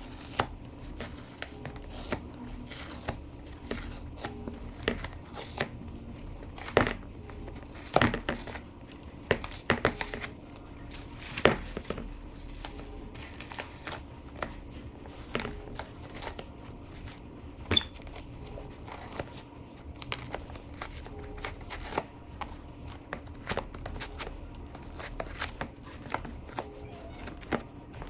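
Irregular crinkling and tearing sounds with scattered sharp clicks and knocks, from motorcycle seat foam being cut and pulled out by hand.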